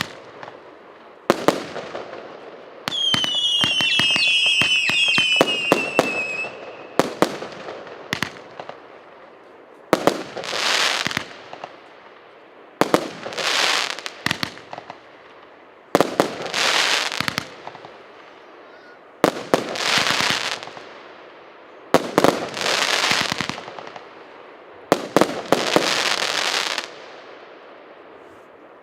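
Firework battery (the 'Expedition' P7533 cake) firing its shots: sharp bangs, with several whistles falling in pitch a few seconds in. After that comes a burst about every three seconds, each a bang followed by about a second of hissing noise.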